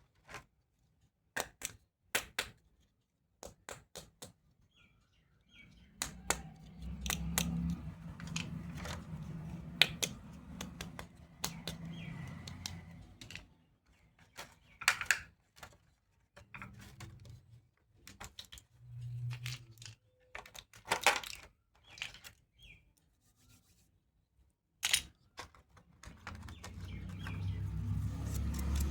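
Plastic toy pieces and packaging being handled: sharp clicks and taps, with stretches of rubbing and rustling handling noise.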